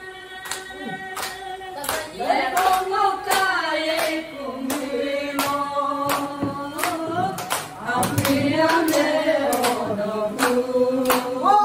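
A woman singing a song into a microphone in long held notes, with a group clapping along in a steady beat about twice a second.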